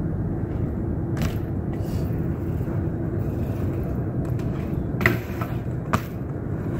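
A BMX bike rolling over concrete with a steady low rumble, and sharp clacks from the bike about one, five and six seconds in, the loudest just after five seconds.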